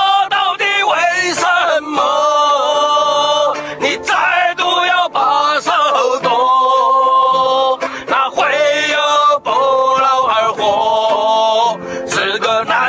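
A man singing a Chinese-language song over backing music, holding long wavering notes.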